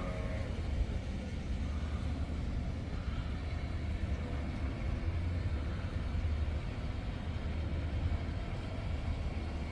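Steady low rumble of distant road traffic, with no distinct events standing out.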